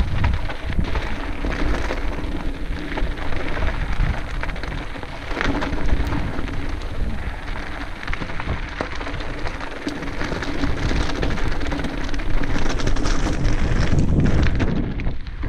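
Commencal Meta SX mountain bike descending a loose rocky trail: tyres crunching and rattling over scattered stones, with a dense patter of small knocks and clatter from the bike, under a low rumble of wind on the microphone.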